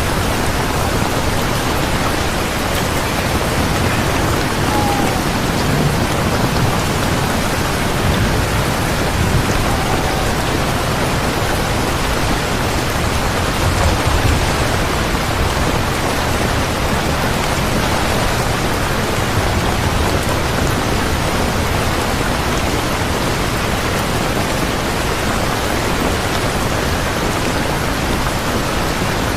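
Steady heavy rainfall, an even hiss of falling rain, with a few low rumbles of thunder swelling up in the first half.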